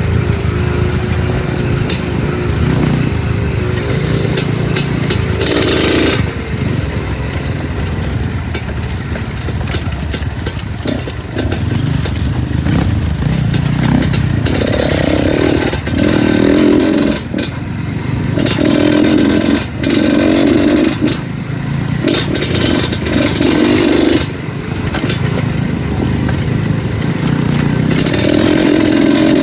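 Two-stroke trail motorcycle riding over rough ground, its engine revving up in repeated bursts, with scattered knocks and clatter.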